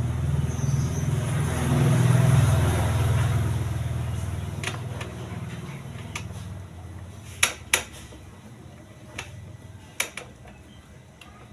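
A low engine rumble swells and fades over the first five or six seconds. After that come several sharp metal clicks and taps as mounting bolts are fitted to the spin motor of a twin-tub washing machine.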